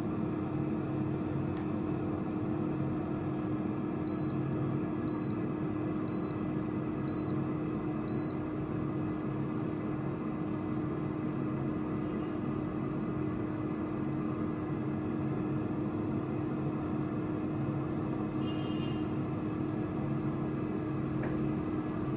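Agaro air fryer oven's fan running with a steady hum; about four seconds in, five short high beeps about a second apart signal that the cooking timer has run out.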